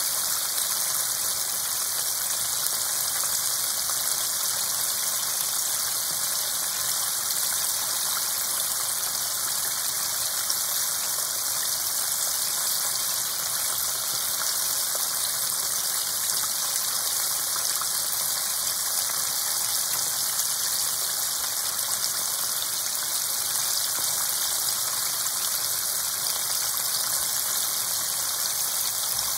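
Breaded chicken pieces deep-frying in hot oil in a pan: a steady, dense sizzle and crackle of bubbling oil.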